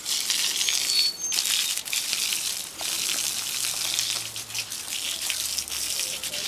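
Water from a garden hose spraying onto a horse's wet coat: a steady hiss that drops out briefly a few times.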